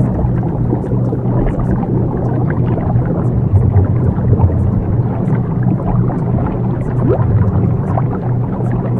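Subliminal audio track: a steady low hum of two pulsing tones, which the track's maker lists as a delta-wave frequency, under a dense rumbling noise with scattered faint ticks.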